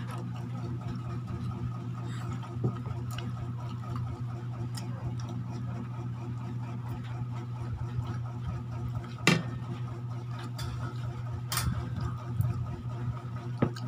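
A steady low hum throughout, with a few sharp clicks and clinks of plates and utensils on the table, the loudest about nine and eleven and a half seconds in.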